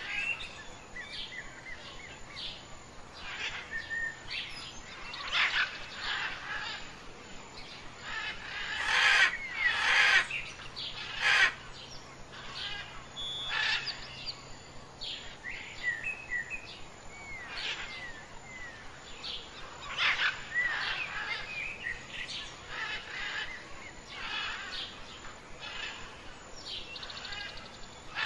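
Birds chirping and calling all through, with many short whistled notes that slide up and down and a few louder calls about nine to eleven seconds in.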